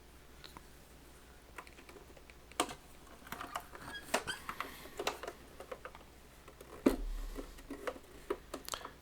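Scattered clicks and light knocks of hard objects being handled, irregular, with one louder knock about seven seconds in.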